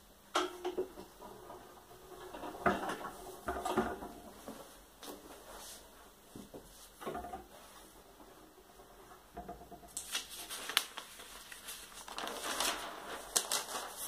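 A large sheet of paper handled on the bed of an etching press: irregular rustling and light knocks, with denser paper rustling about ten seconds in and again near the end as the sheet is lifted by its edge.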